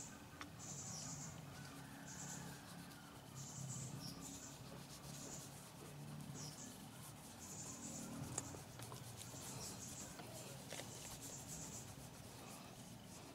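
A hand rubbing scratch-remover compound over a plastic motorcycle helmet shell: faint swishing strokes, about one a second.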